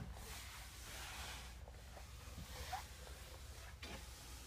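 Quiet room tone with a low hum, faint rustling and a couple of soft clicks, typical of someone handling a phone while walking through a small room.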